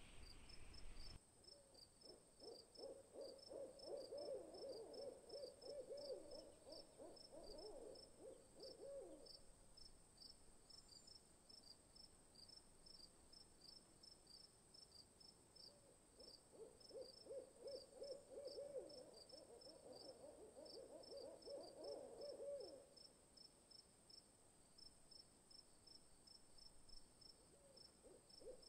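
Faint owl calls in two long, quavering runs of several seconds each, and a third beginning near the end. A high chirping repeats a few times a second underneath.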